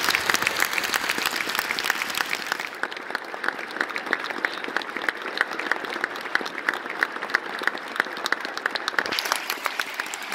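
Audience applauding in a concert hall: many hands clapping together in a dense, steady ovation.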